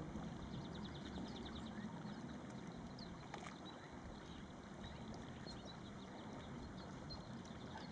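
Faint, steady rush of a shallow desert creek over rocks, with scattered short, high chirps of small birds.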